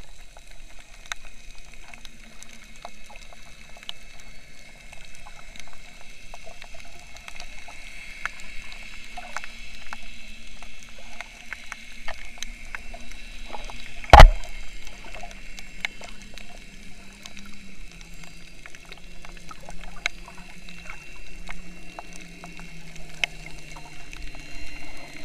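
Underwater sound over a coral reef, heard through a camera housing: a constant crackle of scattered sharp clicks with a faint steady hum, and a low drone that slowly drops in pitch in the second half. One loud sharp knock stands out about halfway through.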